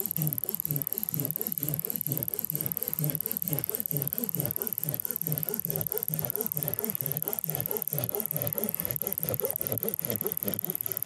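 Silky Gomboy folding pruning saw cutting through a green stick with quick, even back-and-forth strokes, about two a second. A steady high-pitched tone sits over the sawing.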